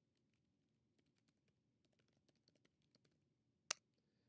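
Computer keyboard typing: a few scattered key taps, then a quick run of keystrokes through the second and third seconds, and one sharper, louder click near the end.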